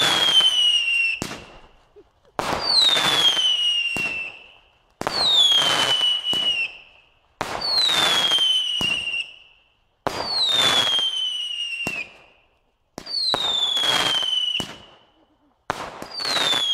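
Supreme 6 'Silver Crown' firework barrage cake firing about every two and a half seconds, seven times. Each shot is a sudden burst with a whistle falling in pitch over crackling hiss, fading for a second or two before it cuts off.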